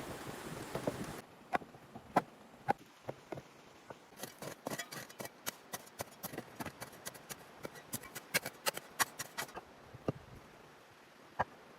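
Rustling for about a second, then a long run of irregular sharp clicks and snaps, thickest in the middle and thinning out near the end.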